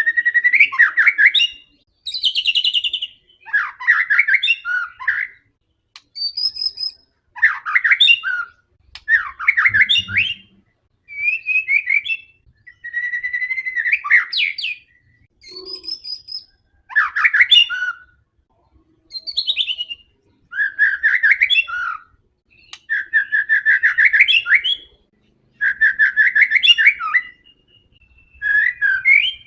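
White-rumped shama (murai batu) singing in full voice: a long string of varied phrases, each a second or two of rapid notes and whistles, with short pauses between them.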